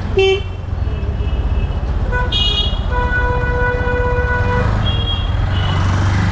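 Busy street traffic with vehicle horns honking again and again: several short toots and one long, steady horn blast of about a second and a half near the middle, over a constant rumble of engines.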